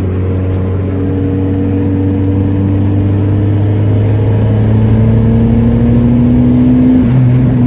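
Turbocharged car engine heard from inside the cabin, pulling under acceleration with its pitch rising slowly and steadily, then changing pitch near the end. It is making only about 2 psi of boost, with the engine not yet warm.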